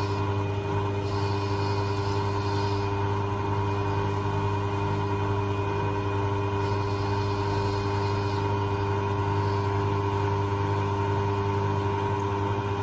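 Jewelry lathe running with a steady motor hum while a diamond tool skims the outer surface of a wedding band, a faint high cutting hiss coming and going.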